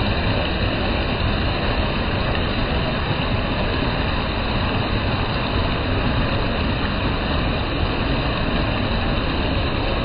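Loud, steady rush of white water pouring over rocks at the lip of a waterfall.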